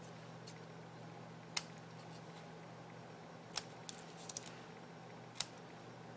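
Paper snips cutting small V-notches into the ends of cardstock strips: three sharp snips about two seconds apart, with a few lighter clicks of the blades between them.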